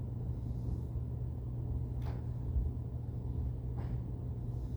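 Steady low background hum in a pause of speech, with two faint brief clicks, one about two seconds in and one near the end.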